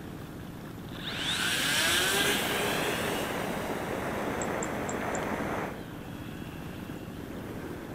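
Electric motor and propeller of a hand-launched RC motor glider running as it climbs away, its whine sliding down in pitch as it recedes. It starts about a second in and cuts off suddenly about two seconds before the end.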